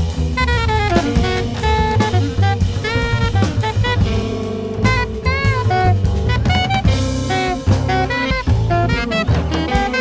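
A jazz ensemble playing, with horns over a drum kit and bass keeping a steady groove. The horn lines have notes that arch and bend in pitch.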